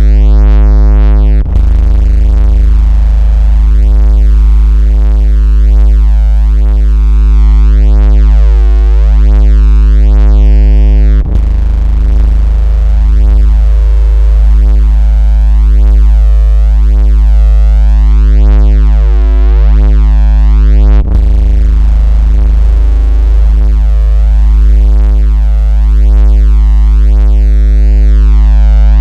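Loud, steady synthesized 56 Hz bass tone with a buzzy stack of overtones, a phone-vibration / speaker water-ejection sound. It cuts out for an instant and restarts three times, about every ten seconds.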